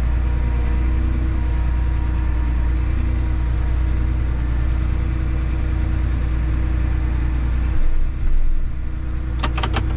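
John Deere tractor engine running steadily while the tractor is eased into line with a snow blade, with a brief swell in the low rumble about eight seconds in. Near the end come four quick sharp clicks.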